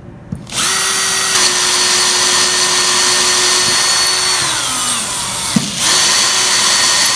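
Bosch 18V cordless drill boring a pilot hole into a wooden podium top. The motor whines at a steady pitch, slows and drops in pitch about four to five seconds in, then spins up again for the last second or two.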